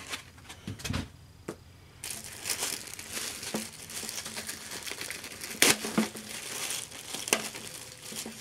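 Packaging being handled during an unboxing, crinkling and rustling, mostly from about two seconds in, with scattered sharp clicks, the loudest a little past halfway.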